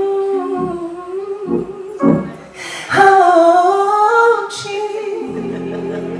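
A woman singing a slow gospel worship line solo into a microphone, holding long notes that waver with vibrato, with short breaks between phrases. Near the end her voice drops out and a soft sustained chord from the accompaniment carries on.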